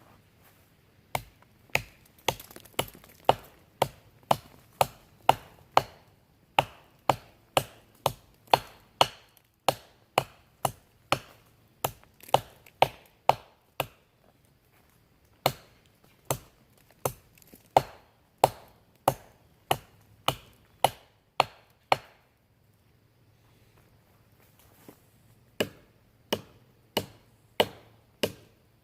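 Pipe-wrench knife blade chopping into a wooden log: sharp separate blows at about two a second, stopping for a few seconds before the chopping starts again near the end.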